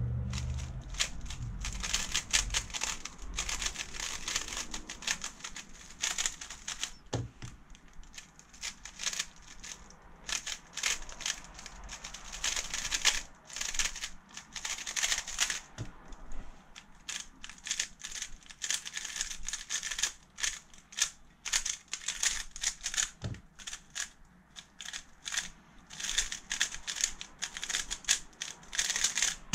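Speedcubes (3x3, 4x4 and 2x2 plastic puzzle cubes) turned at speed: fast runs of clicking and clacking as the layers snap round, broken by short pauses. Three dull knocks stand out through the run, about a third, halfway and three-quarters of the way through.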